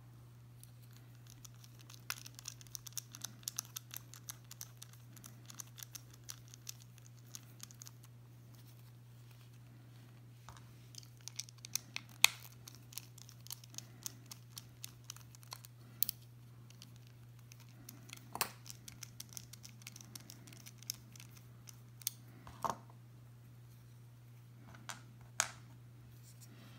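Faint clicks and scratches of a small Torx bit driver working the handle screws of a folding knife, with a few sharper clicks of small metal parts (screws, pivot, washers) being set down on a wooden table. A low steady hum sits underneath.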